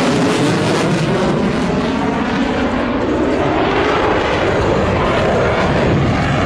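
Fighter jet roaring loudly and steadily overhead.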